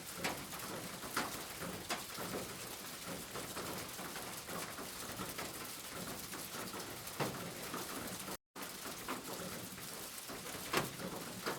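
Steady rain falling, with irregular louder drops tapping on a surface. The sound cuts out completely for a split second about eight seconds in.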